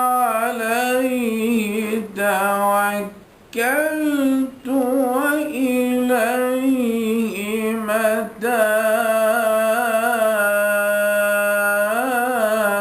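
A male reciter chanting the Quran in a slow, melodic style, unamplified with no microphone or effects. He holds long ornamented notes, with short breaks for breath about three seconds in, again at four and a half, and near eight seconds.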